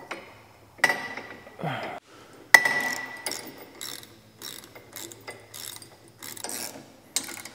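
Ratcheting wrench clicking as a lock nut is run down and snugged on a steel canopy-bracket bolt. There are two ringing metal clinks, about a second in and a louder one at about two and a half seconds, then a string of quick ratchet clicks.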